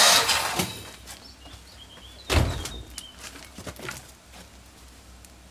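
The Citroën 2CV's air-cooled flat-twin stops cranking on the starter for a compression test and spins down within about a second. A single sharp thunk comes a little over two seconds in, followed by a few faint bird chirps.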